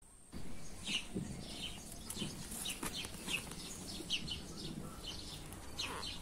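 Hens clucking, with small birds chirping in short high calls over them; it starts about half a second in.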